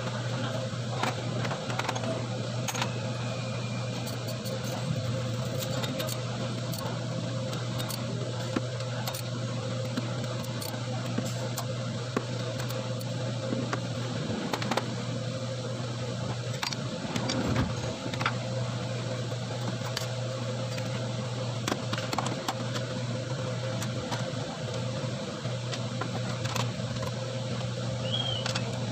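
Toyota Hiace's four-cylinder diesel engine running at a steady idle: an even low hum with scattered light clicks.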